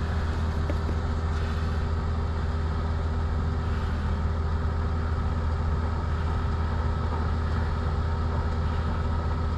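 A heavy-equipment engine running steadily, a low even drone with a few constant tones and no change in speed.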